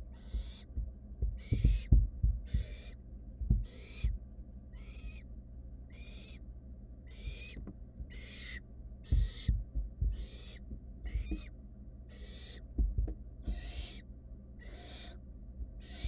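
Barn owl nestlings giving their hissing, rasping begging calls, one after another about once a second. Low thumps and scuffs come from the chicks shifting about on the wood-shaving floor of the nest box.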